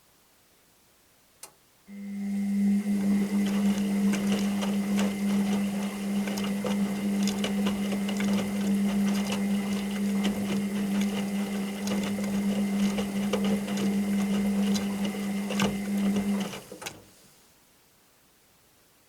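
Washing machine's drum motor running in a wash-cycle tumble: a steady hum with rattling and clicking from the turning drum, lasting about fifteen seconds and then stopping. A short click comes just before it starts.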